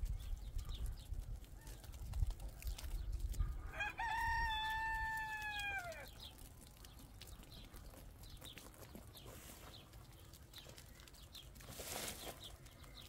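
A rooster crowing once about four seconds in: one drawn-out call lasting about two seconds that holds its pitch and drops at the end. A low rumble runs under the first few seconds, and a brief rush of noise comes near the end.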